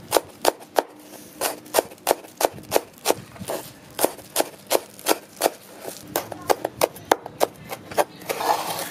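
Cleaver chopping green onions on a wooden cutting board: quick, regular knocks, about four a second, with short pauses. A short burst of noise comes near the end.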